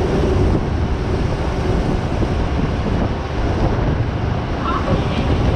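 Heavy wind buffeting the microphone while travelling, over a steady low rumble of a moving vehicle.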